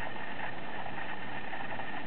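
A steady mechanical hum with a thin, high, unchanging whine over it.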